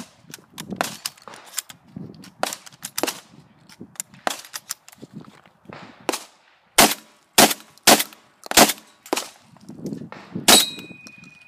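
A Beretta 1301 gas-operated semi-automatic 12-gauge shotgun fired in quick succession: about six loud shots roughly half a second apart in the second half, after a run of lighter sharp cracks. Near the end a metallic ring hangs on after a shot.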